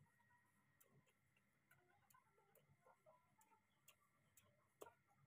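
Very faint clicks, roughly two a second and not quite even, from a baby monkey sucking milk from a bottle teat, with one stronger click near the end.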